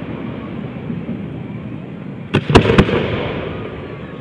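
Aerial fireworks: the rumble of earlier bursts dies away, then three sharp bangs in quick succession about two and a half seconds in, followed by an echoing rumble that fades.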